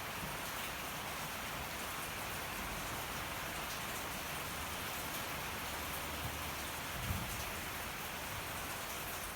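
Steady rain falling, with a wood fire crackling in small faint clicks over it. A single soft low thump about seven seconds in.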